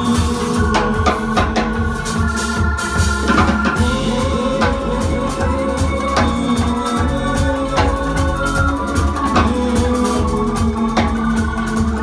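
Live reggae band playing an instrumental passage: held electric organ chords over a steady bass line and drum hits.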